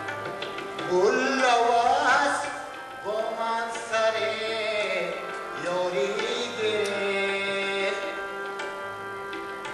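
Afghan classical-style music: a man sings an ornamented, gliding melody over a harmonium's held chords, with tabla accompaniment. The voice comes in about a second in and drops out near the end, while the harmonium keeps sounding.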